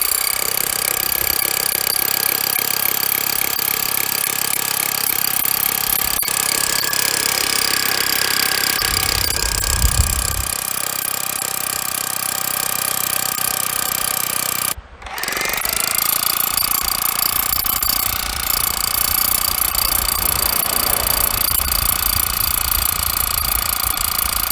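Large power drill with a 36-inch bit boring through rock in the ground: a loud, steady motor whine with grinding. It stops briefly about fifteen seconds in, then spins back up with a rising whine.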